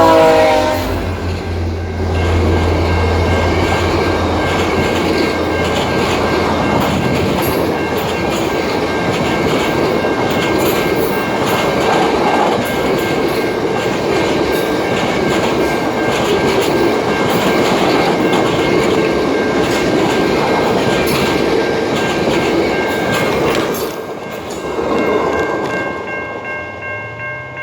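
VIA Rail's The Canadian passenger train passing close by, its horn just ending and its F40 locomotives' diesel drone fading in the first two seconds. Then comes a long steady rumble of passenger cars rolling by, with quick wheel clicks over the rail joints and a thin steady ringing from the wheels. About 24 s in the noise drops as the end of the train goes by, swells briefly and then fades away.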